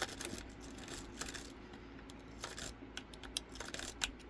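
Covert Instruments wave rake being worked in and out of a Hyper Tough pin-tumbler deadbolt's keyway: an irregular run of light metallic clicks and scrapes as the rake jostles the pins.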